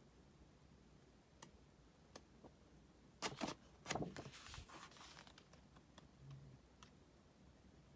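Quiet handling of a boxed CD album and its packaging: a few soft clicks, then two brief rustling, scraping noises about three and four seconds in.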